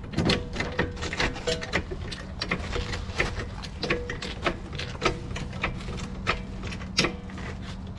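Hydraulic floor jack being pumped by its handle to raise a car, with metal clicking over and over, a few clicks a second. A steady low hum runs underneath.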